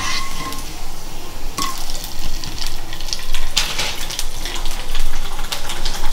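Kharodya (fryums) deep-frying in a kadai of hot oil, a steady sizzle with crackle. A few metallic clinks and scrapes come from the wire spider skimmer as the fryums are lifted out.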